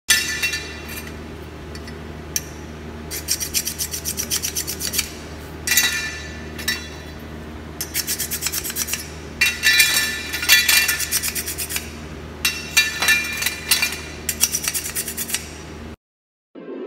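Gloved hands rubbing and scraping plastic in quick runs of short strokes, several a second, in bursts, over a steady low machine hum. The sound cuts off about a second before the end.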